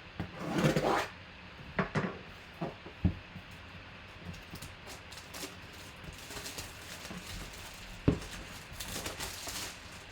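A box and its packaging being handled and opened by hand: a burst of rustling about half a second in, a few sharp knocks, and more rustling near the end.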